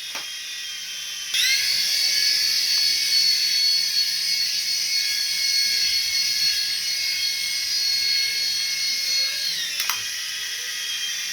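A small electric motor in a radio-controlled toy whining at high pitch. It spins up abruptly about a second in, runs steady, then drops to a lower whine near the end.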